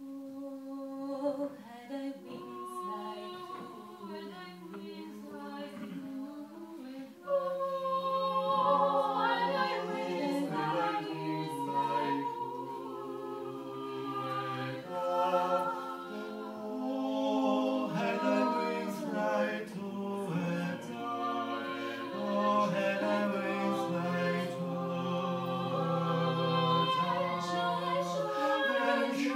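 A small mixed vocal ensemble of five voices, women and men, singing unaccompanied in harmony. The singing grows louder about seven seconds in.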